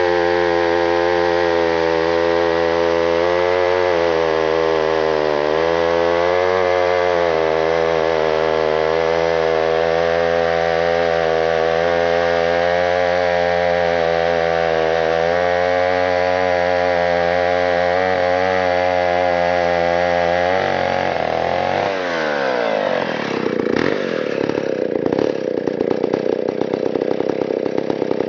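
Stihl 090 two-stroke chainsaw running at full throttle through a long cut in a big log, its note steady with slight wavering under load. About 21 seconds in the throttle is let off, the pitch falls away, and the saw settles to idle.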